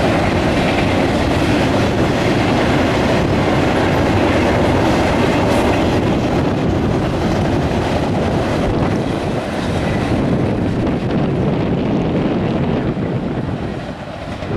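Double-stack intermodal freight cars rolling past over a steel girder overpass, a steady loud rumble of wheels on rail, easing off somewhat near the end.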